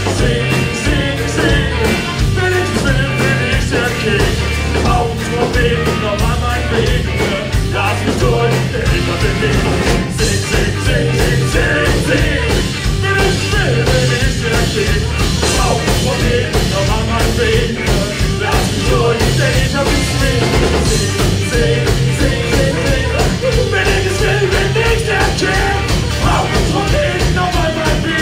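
Live band playing, with a steady drum beat under a heavy bass line.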